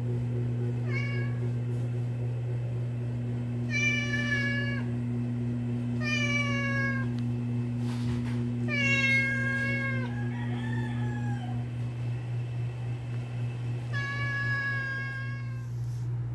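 Hungry domestic cats meowing for food: about six separate drawn-out meows, a few seconds apart, each sliding slightly down in pitch at the end. A steady low hum runs underneath.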